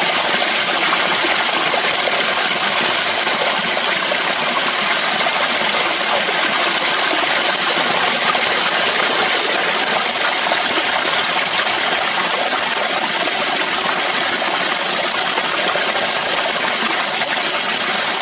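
Mountain stream water rushing over rocks, a steady loud hiss that does not change.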